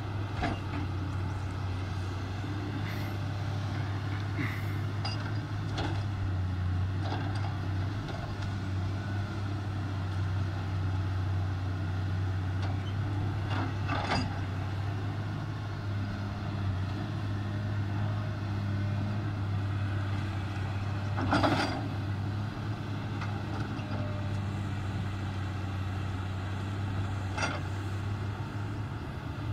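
Komatsu PC300 excavator's diesel engine running steadily under hydraulic work, with several sharp knocks of the bucket on rock, the loudest about two-thirds of the way through.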